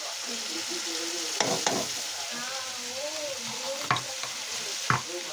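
Chopped onion and spices frying in oil with a steady sizzle as a metal spoon stirs them in the pan, with a few sharp clicks of the spoon against the pan.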